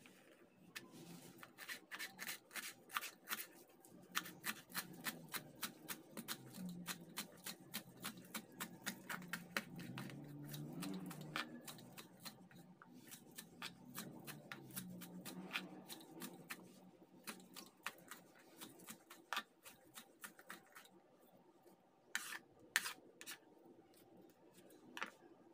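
Knife chopping fresh herbs on a plastic cutting board: quick, even taps about four a second, thinning to a few scattered taps in the last several seconds.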